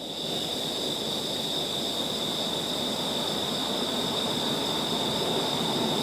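Steady road traffic noise with a constant high-pitched whine running over it.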